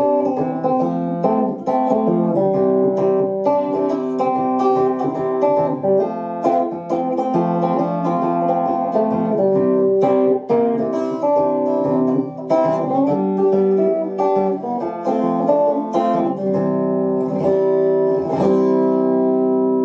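Fender two-knob Stratocaster electric guitar played as a steady run of picked notes and chords, with the 5-way selector in the middle position and the tone control fully anti-clockwise for a darker, bassier sound. The playing stops right at the end.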